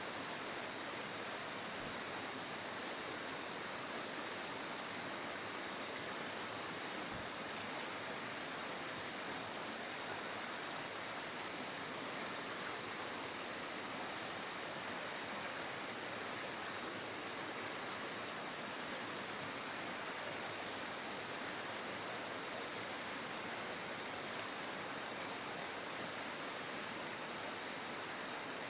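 Steady rushing of a flowing river, even and unbroken, with a thin steady high tone over it.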